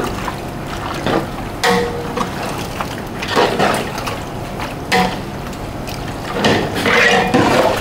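Long metal ladle stirring wet chunks of tripe and their cooking water in a large metal cooking pot, a squelching, sloshing sound, with the ladle clanking twice against the pot's side and ringing briefly.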